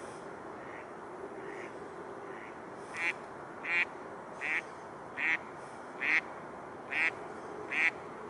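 A duck quacking in a regular series: faint at first, then about seven loud quacks under a second apart from about three seconds in.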